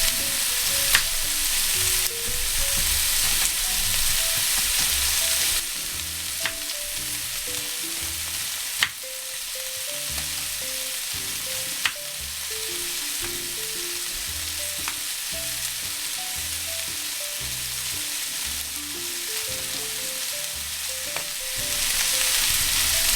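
Curried duck with spring onions sizzling as it fries in a pot, a steady hiss with a few sharp clicks here and there. The hiss drops a little in level around five seconds in and again midway.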